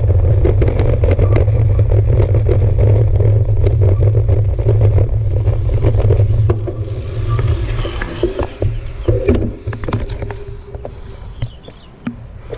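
Road bike rolling over cobblestone paving, giving a loud rumble with dense rattling clatter; about six and a half seconds in it reaches smooth asphalt and the rumble and rattle drop away to quieter rolling and wind noise.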